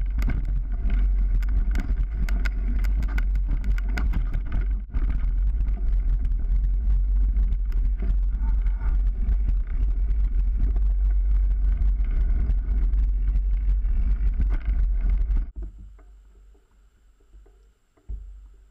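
Wind buffeting the microphone of a bike-mounted camera, with the rumble and rattle of a mountain bike rolling over a leaf-covered dirt trail. About three-quarters of the way through it stops abruptly and goes much quieter, leaving only a faint high steady tone.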